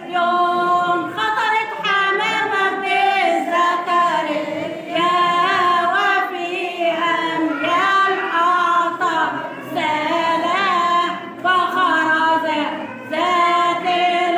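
Women's voices singing a Coptic madiha (praise hymn) together, unaccompanied, in a flowing melody with short breaths between phrases.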